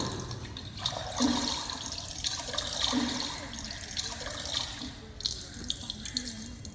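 Water splashing and sloshing in uneven surges: the show's sound effect of the palanquin being dipped into the river for bathing.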